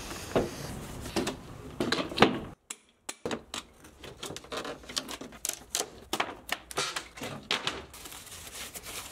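Cardboard packaging around a new track-saw guide rail being handled and opened: a quick, irregular run of knocks, taps and scrapes, with a short break in the sound a little under three seconds in.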